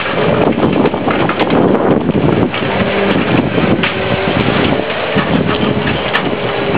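Heavy wind buffeting the microphone, with a faint steady engine hum underneath.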